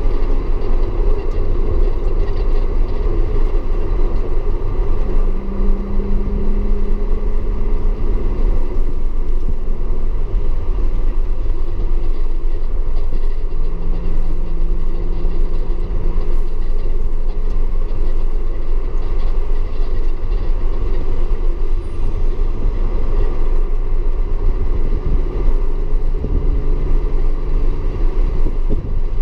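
Audi S4 engine running at steady, moderate revs over a heavy low rumble of road and rain noise. Its pitch holds for a few seconds at a time, then steps down or up as speed changes.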